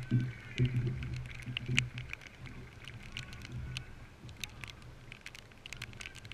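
Male footballers' shouts of celebration just after a goal is scored, loudest in the first two seconds and then dying down, over a scatter of light clicks.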